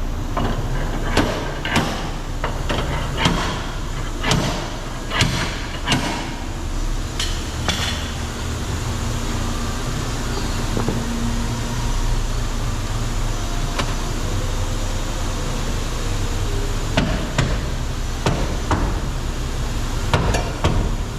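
Hammer blows on car-body sheet metal, consistent with knocking out a dent in a damaged quarter panel. They come in two irregular runs, with a lull in the middle, over a steady low hum.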